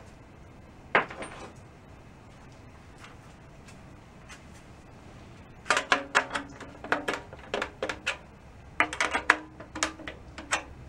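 Drum key turning the tension rods of a 1938 Leedy Broadway Parallel snare drum, in two runs of quick metallic clicks about six seconds in and again about nine seconds in. The drum head rings faintly under the clicks as it is tensioned up, a little higher the second time. A single sharp knock about a second in.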